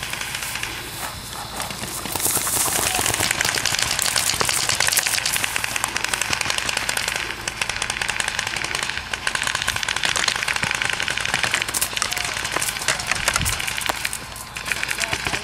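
Many paintball markers firing in rapid, sustained volleys, a dense crackle of shots that eases briefly about a second in and again around the middle.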